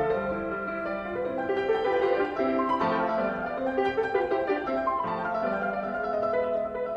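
Classical piano music, a flowing melody of notes moving up and down over sustained lower notes.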